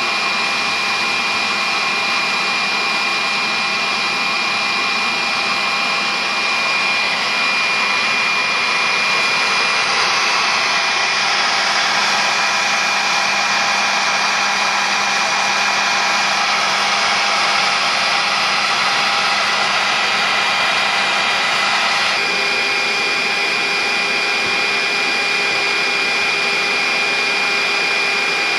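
A hand-held hair dryer runs steadily, blowing air through the door of a pet carrier to dry a freshly bathed ragdoll cat. It makes a continuous rush of air with a high whine. Its tone shifts about a third of the way in, and a low hum joins about three quarters of the way through.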